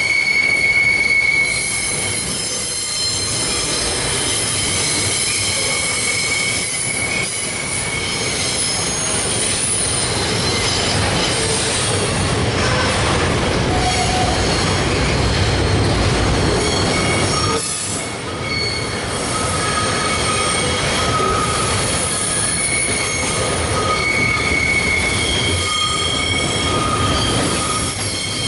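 Freight train of loaded container flat wagons rolling past at speed, a steady heavy rumble and clatter of wheels on rail, with high-pitched squeals from the wheels that come and go, strongest at the start and again near the end.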